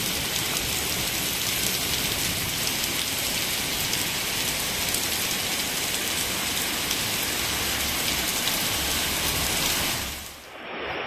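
Torrential rain pouring onto a flooded street and pavement: a dense, steady hiss full of fine drop patter. It dips away briefly near the end.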